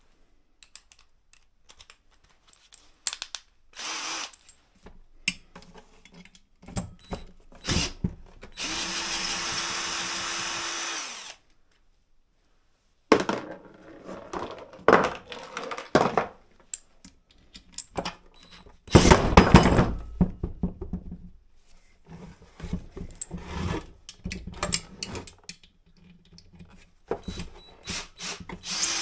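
Cordless drill-driver running in short bursts as screws are backed out of an electric water pump's casing, one steady run of about three seconds some nine seconds in and another starting near the end. Between the runs, knocks, clicks and rattles of the metal parts being handled, the loudest clatter about twenty seconds in.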